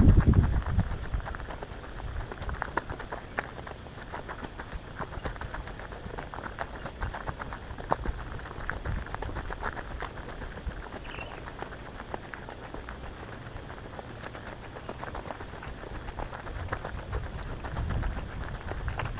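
Footsteps crunching on a dry bush track: a steady crackle of many small snaps, over a low rumble that is loudest right at the start.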